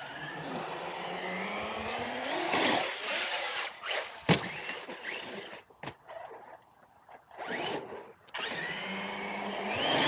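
Brushless electric motor of a Traxxas Sledge RC monster truck whining, its pitch rising and falling with the throttle, with a sharp knock about four seconds in. The motor goes quiet for a few seconds, then whines again near the end.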